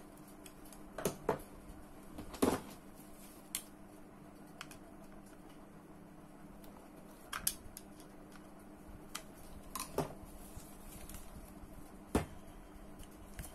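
Scattered small clicks and taps as the parts of a Ryobi AP Power 8000 spinning reel are handled and fitted during reassembly. The loudest tap comes about two and a half seconds in, over a faint steady hum.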